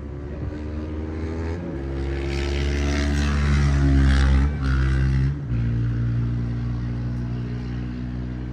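A motor runs with a steady low, many-toned hum. It steps down in pitch about a second and a half in, grows louder through the middle, and drops again about five seconds in.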